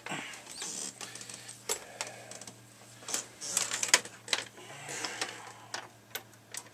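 Scattered light clicks and knocks of hands handling the plastic case of an Amstrad CPC 464 home computer and its leads on a workbench, over a faint low hum.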